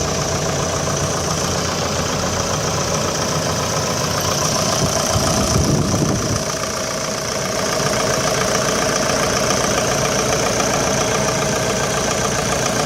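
Terex TW110 wheeled excavator's diesel engine running at a steady idle, with a brief louder surge about five to six seconds in.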